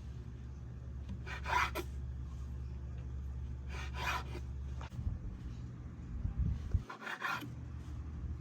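A knife cutting the crusts off slices of bread: three short sawing cuts, spaced a few seconds apart, over a steady low hum.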